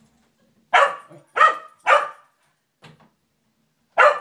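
A dog barking: three loud barks in quick succession starting just under a second in, then one more near the end.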